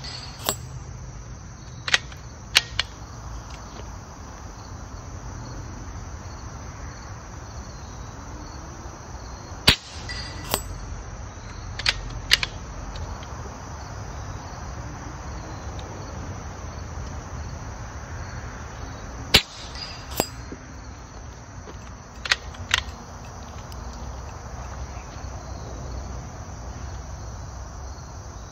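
A .25-calibre AEA Challenger PCP air rifle fires five times, a few seconds apart. Each sharp shot is followed about half a second later by the ping of the pellet striking an 8-inch steel gong at 65 yards. Crickets and other insects drone steadily underneath.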